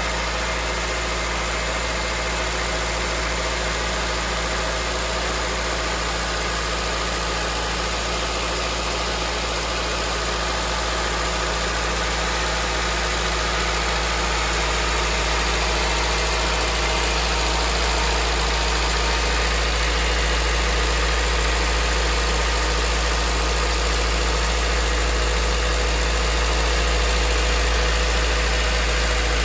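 Car engine idling steadily, a continuous low hum that grows slightly louder about halfway through.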